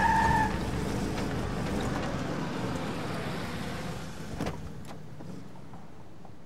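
A short beep at the start, then a pickup truck's engine fading as it drives off. A single car-door click about four and a half seconds in, as a car door is opened.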